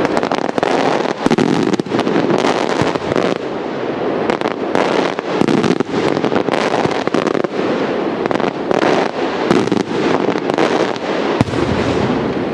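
Maltese beraq firework shells bursting overhead in dense, unbroken crackling, with many sharp bangs one after another.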